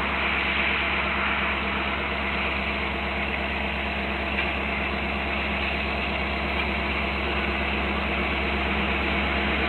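Diesel locomotives of an approaching freight train, a steady engine drone that grows slightly louder near the end.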